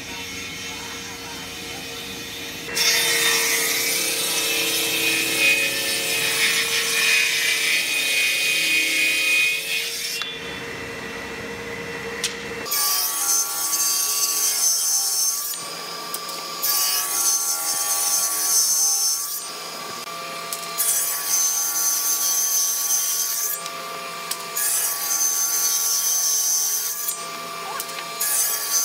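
Table saw ripping hardwood boards along the fence: a run of five cuts of about three seconds each, with the blade running free between them. Before that, a power saw makes one longer cut in wood for about seven seconds.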